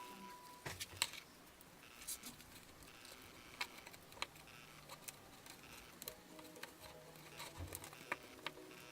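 Light, scattered clicks and rustles of cardstock and paper being handled.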